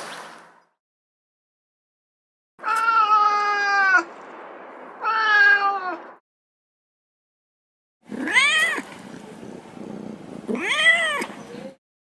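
Domestic cat meowing: two drawn-out meows, a pause, then two more meows that rise and fall in pitch.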